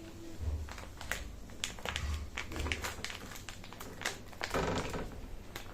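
Irregular light clicks and taps, with a few soft low thumps, from handling an opened packet of marinated chicken and the plate it sits on.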